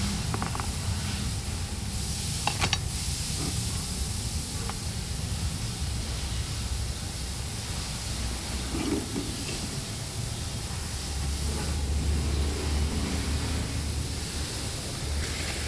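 Steady hiss with a low hum underneath, and a few brief clicks about two and a half seconds in.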